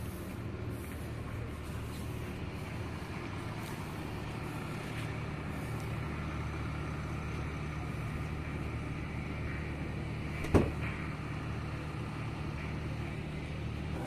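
Steady low hum of an anchor handling tug's diesel machinery running, with a single sharp knock about ten seconds in.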